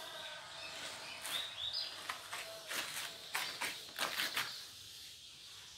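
Handling noise from the homemade motorcycle-chain bar clamp on the bench: scattered light clicks and knocks, busiest in the middle stretch. A few short chirps come about a second in.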